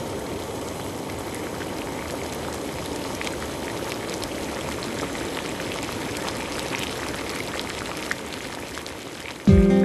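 Water boiling in a large pot: a steady bubbling hiss with scattered small pops. A strummed acoustic guitar starts suddenly just before the end.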